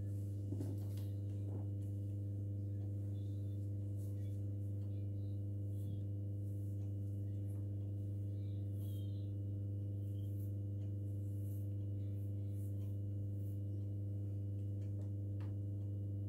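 Steady low hum, one unchanging tone with a stack of overtones, with faint rustles and light clicks of hands working through hair.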